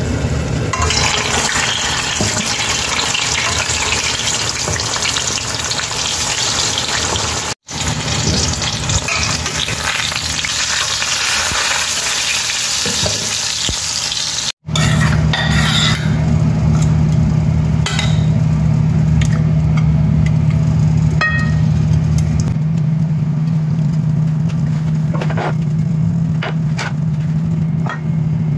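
Hot oil sizzling as peeled eggplant slices fry in a pan, cut off twice by brief dropouts. In the second half a steady low hum dominates, with a few light clicks.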